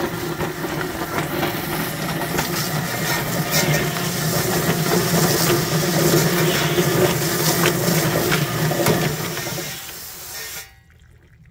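SuperHandy electric drum chicken plucker running with a hose spraying water into it: a steady motor hum under the hiss of water, with many quick knocks as the scalded bird tumbles against the rubber plucking fingers. It eases off about nine and a half seconds in and cuts off shortly after.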